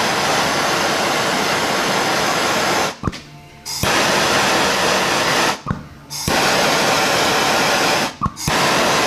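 Handheld propane torch flame hissing steadily, cutting out abruptly three times for under a second each, with small clicks at the breaks.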